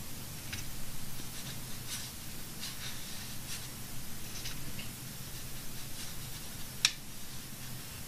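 Watercolor brush strokes on watercolor paper: faint, short scratchy brushing sounds, with one sharp click near the end.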